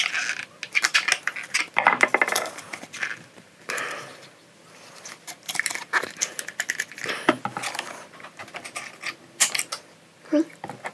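Metal hand tool clinking and knocking against the heater blower motor as it is clamped onto the fan's hub to pull the fan off: irregular clicks and clatter, with a quieter pause around four seconds in.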